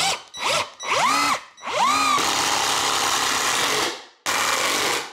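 Cordless drill driving a 5½-inch structural screw into a wooden 4x4: several short trigger pulls in which the motor whines up and back down, then a steady run of about a second and a half, and one more short burst near the end.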